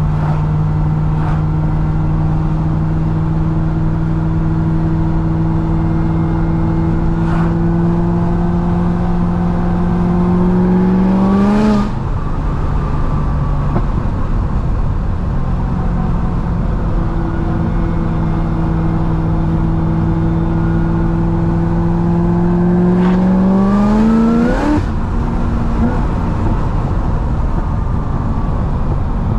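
The supercharged 6.2-litre V8 of a 1000 hp C6 Corvette ZR1, heard from on board, running at steady cruising revs. Twice it pulls, with the revs rising slowly, then climbing quickly and dropping off suddenly about 12 seconds in and again about 25 seconds in.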